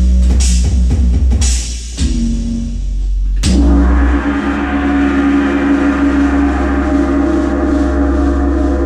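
Drum kit playing over an electronic backing track with a deep bass. After a few quick hits, a sharp crash about three and a half seconds in is left ringing, a long gong-like ring of many steady tones over the held bass until the end.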